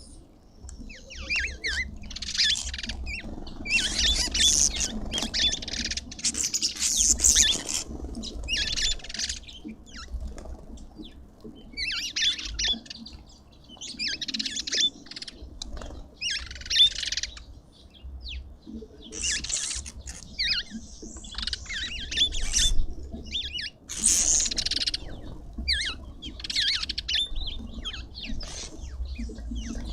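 Small birds chirping and twittering in quick bursts of high-pitched calls, coming in clusters every second or two.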